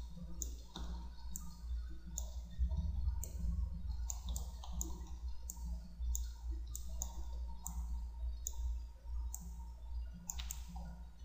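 Computer mouse clicking at irregular intervals, about once a second, over a low steady hum.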